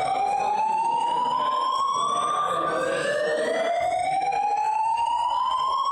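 Building fire alarm voice-evacuation system sounding its slow-whoop evacuation tone: a steady, loud tone that rises smoothly over about four seconds, then drops back and starts rising again, signalling everyone to leave the building.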